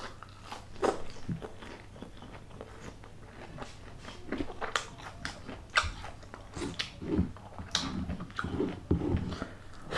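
Close-miked biting and chewing of crispy fried food: irregular sharp crunches, the loudest about a second in and again around five, six and eight seconds, with softer wet chewing between them.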